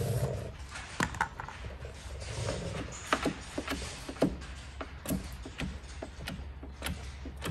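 Wet protective film being squeegeed and pressed down onto a vehicle's rear gate panel: many short squeaks and taps, unevenly spaced, as the tool and hand work across the film. A short spritz from a hand pump sprayer comes right at the start.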